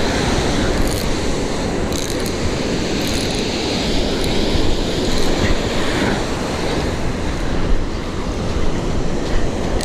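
Ocean surf breaking and washing up the beach, with wind rumbling on the microphone.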